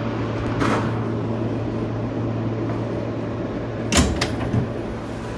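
Inside a New York subway car on the A express: a steady low hum and rumble, with a short knock near the start and a sharp clunk about four seconds in, followed by a smaller one.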